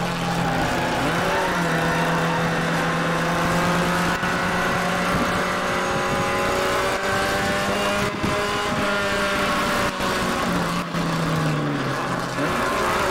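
Classic Mini race car's four-cylinder engine running hard, heard from inside the cabin. Its pitch climbs gradually over the first few seconds, holds, then falls about ten seconds in.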